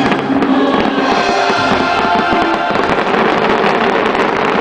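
Show music with held notes plays over the bangs and crackle of fireworks. About three seconds in, a dense crackling of many small bursts swells and covers most of the music.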